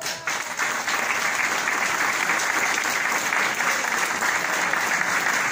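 Audience applause, building over the first second to steady, loud clapping.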